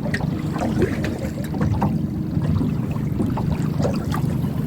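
Wind buffeting the microphone over water slapping against a small drifting boat, a steady low rumble with scattered small knocks and splashes.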